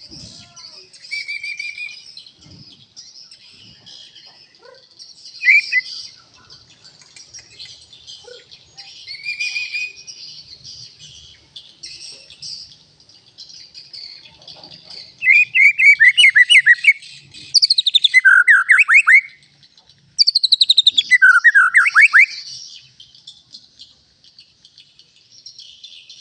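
Bird song: a few short whistled notes, then three loud bursts of rapid, repeated falling notes about two-thirds of the way in, over a steady faint high chirring.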